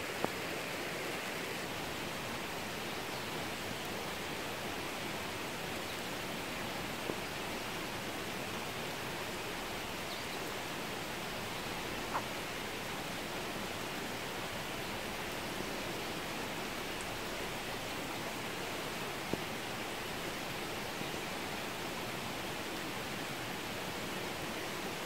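Steady rain falling on a garden, an even hiss with a few single drops ticking close by.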